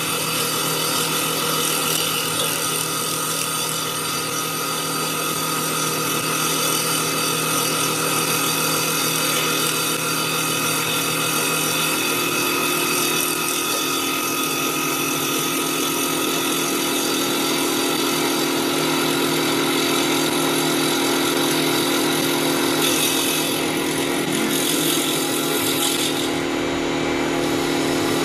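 CNC wood lathe turning a wooden baseball bat blank at 2000 rpm while its motor-driven circular saw blade cuts along it on the final pass: a steady machine whine over the hiss of the blade cutting wood. About twelve seconds in, another steady tone joins and holds.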